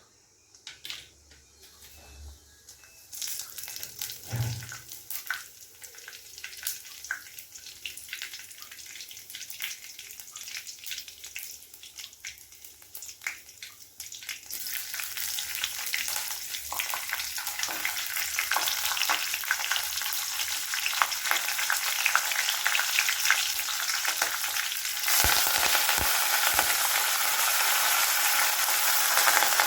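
Food frying in hot oil in a pan for a cabbage sabji. Scattered crackling builds into a thicker, steadier sizzle, which jumps suddenly louder near the end, with a few low knocks.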